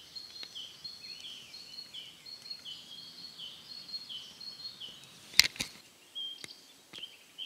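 Caterpillar droppings (frass) falling from the canopy onto dry leaf litter in scattered faint ticks, like a light rain, while a songbird repeats a short high phrase over and over through the first few seconds. About five and a half seconds in come two sharp, loud clicks close together, then a few smaller ones.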